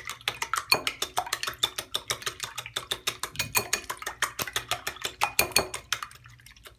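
Wire whisk beating eggs and milk in a ceramic bowl, the wires clicking rapidly against the bowl about six or seven times a second, stopping shortly before the end.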